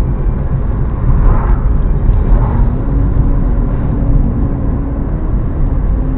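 Moving vehicle heard from inside the cabin while driving in rain: a steady, loud low rumble of engine and tyres on the road. A faint steady hum joins about two and a half seconds in and fades a few seconds later.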